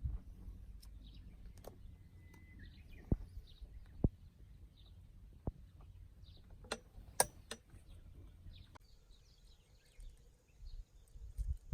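Outdoor ambience: faint bird chirps over a low rumble, broken by several sharp clicks or knocks, the loudest about three, four and seven seconds in.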